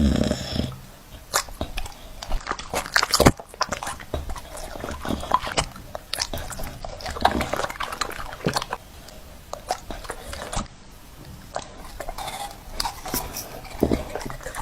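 A dog chewing and crunching on something, a long run of irregular crunches and clicks.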